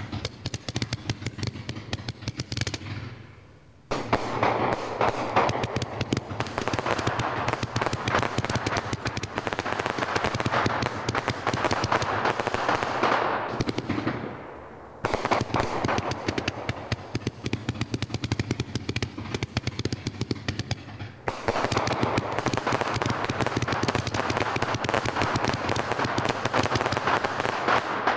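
A 192-shot consumer fireworks cake firing in rapid succession: a dense, continuous stream of launch pops and bursts. The firing thins out briefly and starts up again suddenly about 4, 15 and 21 seconds in, as the cake moves from one section of shots to the next.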